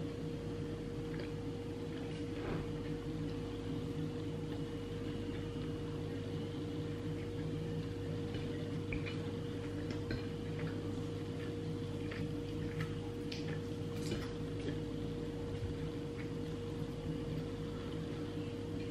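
Eating with the fingers: faint scattered smacks and clicks of chewing and picking at chicken and rice, over a steady electrical hum. One sharper click comes right at the end.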